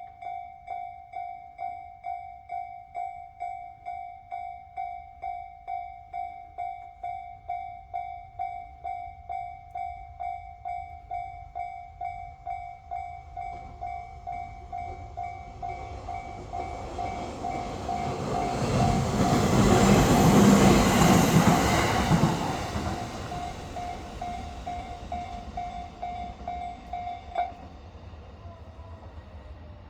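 Japanese level crossing's electronic warning bell dinging in a steady rhythm while a JR East E131 series electric train approaches and passes, the train's rumble swelling to its loudest a little past the middle and then fading. The bell cuts off suddenly near the end, as the crossing clears.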